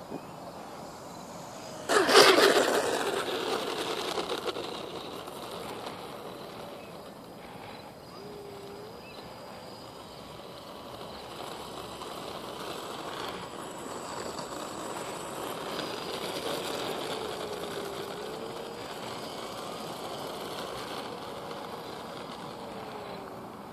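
Small electric RC foam airplane on asphalt, its motor humming faintly, rising and falling in pitch a few times as the throttle changes. A sudden loud noise comes about two seconds in and fades over a couple of seconds.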